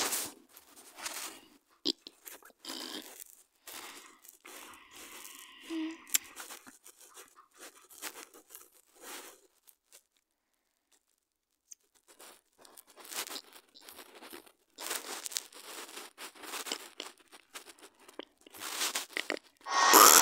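Irregular soft taps, clicks and rustling from a phone being held and its touchscreen keyboard being typed on, with a short quiet gap about halfway through.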